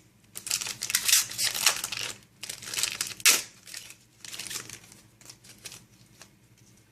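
Yu-Gi-Oh booster pack wrapper crinkling and tearing as the pack is opened: a run of sharp rustles over the first few seconds, dying down to light handling.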